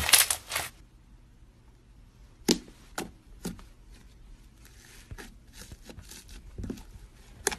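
Beaded crunchy slime crackling under squeezing fingers for under a second, then after a pause slime pressed by hand gives sharp pops about half a second apart, softer clicks and crackles, and one more sharp pop near the end.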